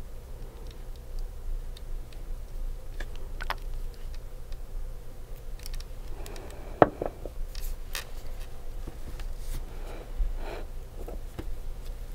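Soft clicks, taps and short light scrapes of nail-art tools and materials being handled during a manicure, with one sharper click about seven seconds in, over a low steady hum.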